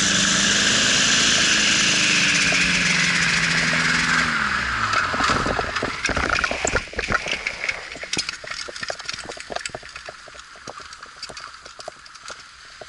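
Powered paraglider trike's engine and propeller running, then winding down in pitch over about five seconds as it throttles back on landing. After that the trike's wheels roll over rough grass with many irregular knocks and rattles as it slows.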